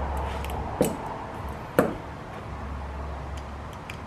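Small hardware handling while a ceiling fan blade is screwed to its metal bracket: two sharp knocks about a second apart, then a few faint ticks, over a low steady hum.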